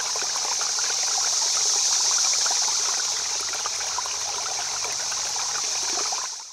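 River water running and babbling steadily, a bright rushing hiss with small splashes through it; it fades out near the end.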